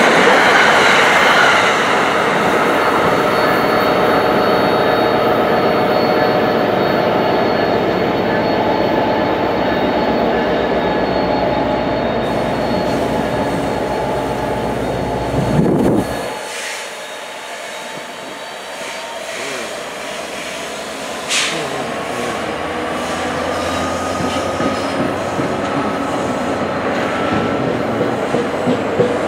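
NJ Transit commuter train running through a station: steady rail and wheel noise as the double-deck cars go by, easing off as the train draws away. After a sudden drop, a second electric commuter train approaches with its noise building and a faint rising whine. Sharp wheel clicks over rail joints come near the end.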